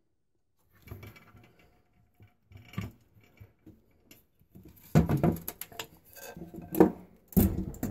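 Hands handling a small steel wood stove: light metallic knocks and clatter as its parts are touched and moved, with a few louder knocks in the second half.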